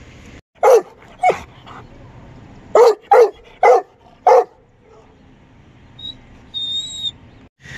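Doberman Pinscher barking six times in loud, sharp barks in two bunches, inside a car's cabin.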